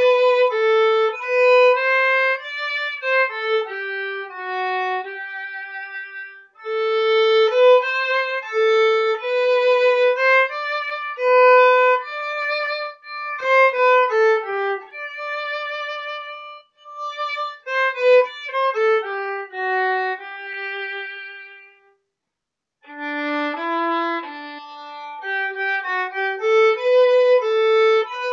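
Solo violin playing a slow hymn melody one note at a time, the held notes with vibrato; the phrase breaks off briefly about three-quarters of the way through, then resumes.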